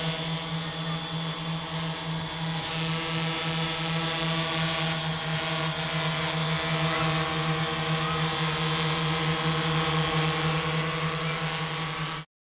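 DJI F450 quadcopter's four motors and propellers hovering: a steady, wavering buzz with a strong low hum and many higher tones stacked above it. It stops abruptly at the very end.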